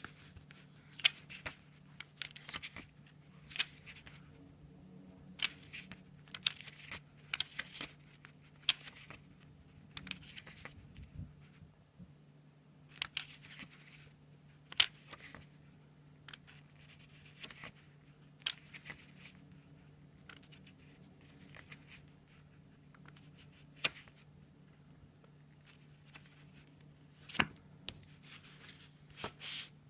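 Paper and card being handled: a thin booklet's pages leafed through and stiff printed cards slid over cardboard packaging, in irregular short rustles and crackles.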